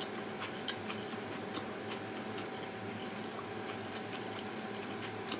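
Faint quick ticking, several clicks a second, over a steady low electrical hum and a thin steady tone: quiet room tone.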